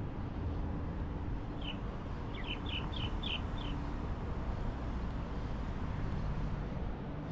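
Steady rumble of city traffic, with a bird giving a quick run of about six short, high chirps a couple of seconds in.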